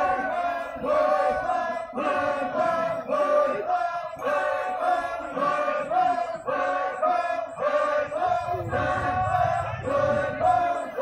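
Group of Ao Naga performers chanting together, a short call repeated about once a second, as a traditional harvest work chant.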